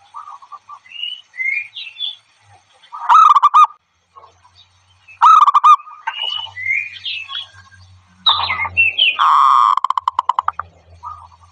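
Zebra doves calling: three loud bursts of rapid staccato cooing notes, the last the longest and trailing off in a quick pulsing rattle, with higher chirping notes in between.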